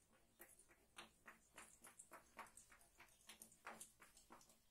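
Faint, irregular rubbing strokes of a duster wiping a whiteboard clean.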